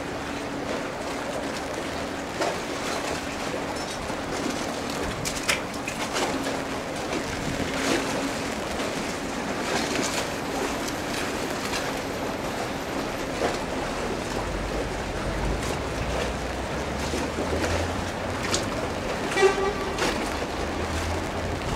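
Outdoor ambience with a steady hum of distant traffic and scattered clicks. A low engine rumble builds about two-thirds of the way in, and a short horn toot sounds near the end.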